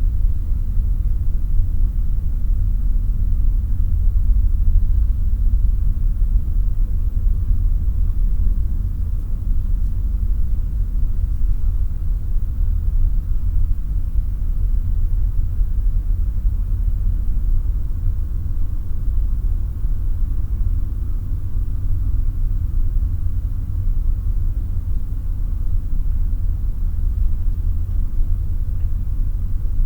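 Room atmosphere: a steady, unchanging low rumble with a faint hiss above it.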